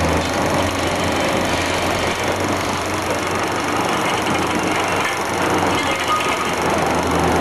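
Scrap metal being fed to a shredder: continuous crunching and clattering of metal pieces over a steady low machinery drone.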